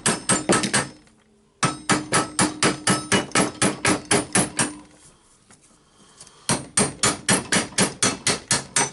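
Light, rapid hammer taps on a screw threaded against a sander armature's ball bearing, trying to drive the stuck bearing off the shaft. Three runs of about five taps a second with short pauses between them.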